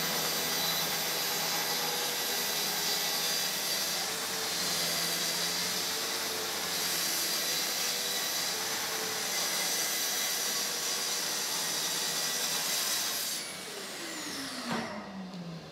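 Festool plunge-cut track saw running along its guide rail, cutting through a wooden tabletop panel, with its dust extractor running. It sounds steady with a high whine, and about 13 seconds in the saw is switched off and its motor winds down in a falling whine.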